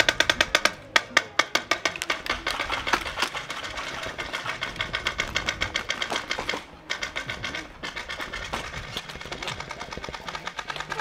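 Airsoft guns firing on full auto: a fast, even rattle of shots, with short breaks about a second in and again about seven seconds in.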